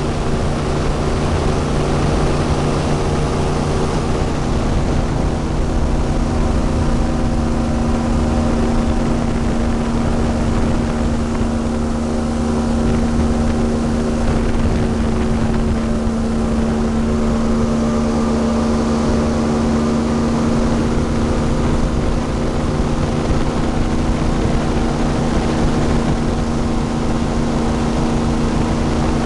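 Airboat's engine and open air propeller running at speed, a loud, constant drone that holds one steady pitch.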